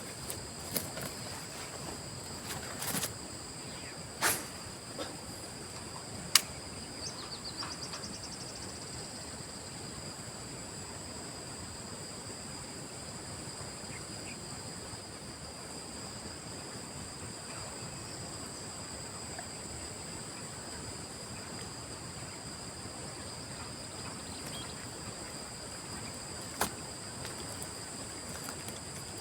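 Steady chorus of insects, with two unbroken high-pitched buzzing tones over a soft outdoor hiss. A few sharp clicks break in at about four seconds, six seconds and again near the end.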